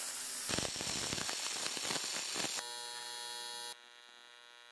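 A MIG welding arc on aluminum, hissing and crackling for about two and a half seconds. It cuts to a TIG arc on aluminum, running on AC and giving a steady electric buzz for about a second before it stops.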